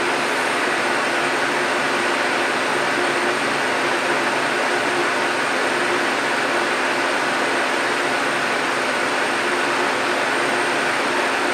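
Steady, even noise with a faint underlying hum, unchanging and with no distinct knocks or clicks.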